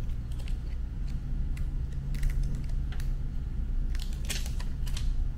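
Scattered small clicks and snips from hand work on a red wire lead and its terminal, over a steady low hum.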